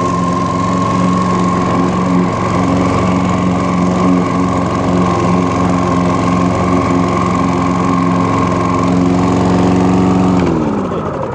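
Hayter Harrier 56 Pro petrol rotary lawnmower engine running steadily at working speed. It is shut off near the end, and its pitch falls away as the engine runs down.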